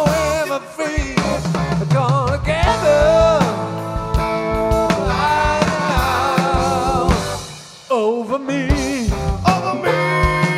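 Live rock band playing electric guitar, bass guitar, drums and organ-style keyboard, with a lead line that bends and wavers in pitch. About three-quarters through, the sound thins out briefly, then the full band comes back in.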